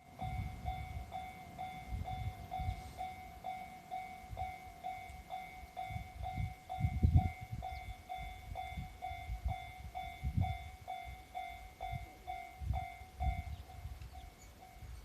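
Japanese level-crossing warning bell ringing, an electronic clang repeating evenly about two and a half times a second, over irregular low rumbling.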